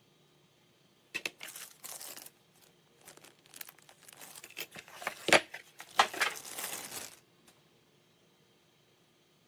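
Crinkling and rustling handling noise, broken by two sharp clicks about five and six seconds in.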